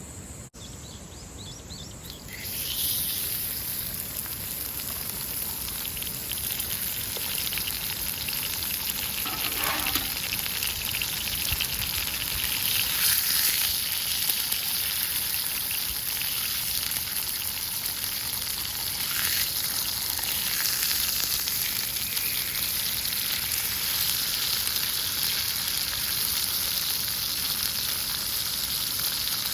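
Food sizzling and frying in a hot pan, starting suddenly about two seconds in and going on as a steady crackling hiss.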